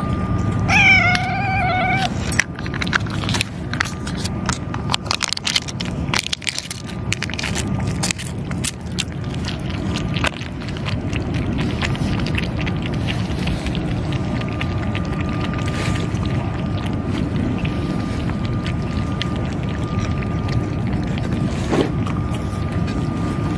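A cat gives one short, wavering meow about a second in. Then the cats eat from a metal dish: quick clicks of chewing and lapping, thickest in the first half, over a steady low rumble.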